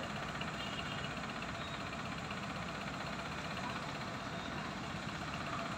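Tata Ace mini truck's engine idling steadily.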